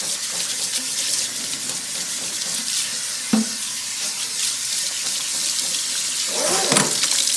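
Kitchen tap running steadily into a sink while dishes are washed by hand, with a single knock about three seconds in.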